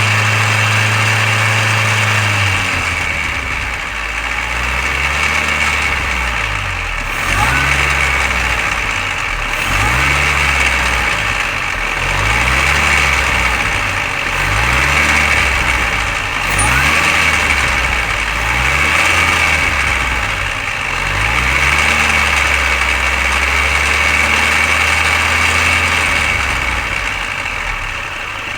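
Mini Cooper R53's supercharged 1.6-litre four-cylinder engine running, its speed repeatedly rising and falling through the middle stretch. It carries a rattle that the owner cannot trace, still there after a new timing chain tensioner, chain guides and PCV valve.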